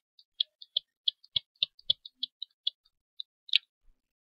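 Computer mouse scroll wheel clicking in quick, irregular ticks, a few a second, as a document is scrolled, with one louder, sharper click near the end.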